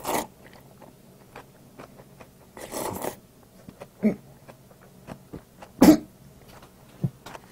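A person eating Jjapaghetti instant black-bean noodles: a few short slurps of the noodles broken by short coughs, as the spicy kimchi seasoning catches in his throat.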